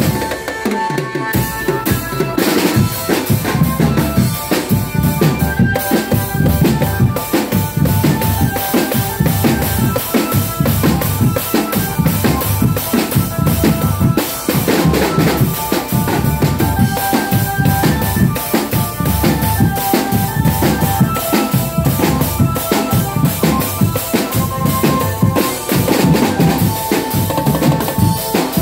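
Drum band playing live: a driving, fast rhythm on marching snare and bass drums, with a melody of short high notes over it. The low drums drop out briefly at the very start, then come back in.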